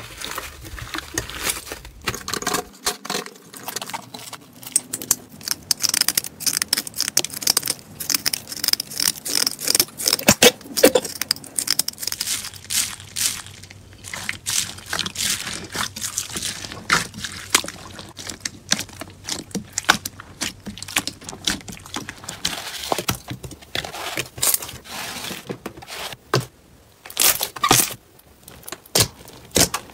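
Slime being kneaded, squeezed and poked by hand: a dense, irregular run of small crackles, pops and squishes, with a few short pauses in between.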